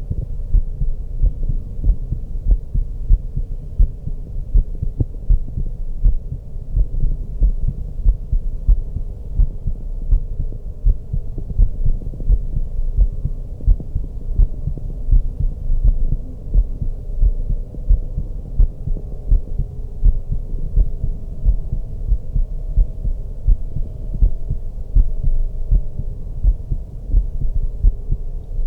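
A woman's heartbeat heard through a stethoscope: regular low thumps, with a faint steady hum underneath.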